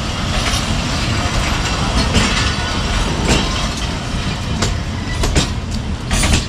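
Pakistan Railways passenger coaches rolling past as the train pulls out of the station, a steady rumble with sharp, uneven clacks of the wheels over the rail joints.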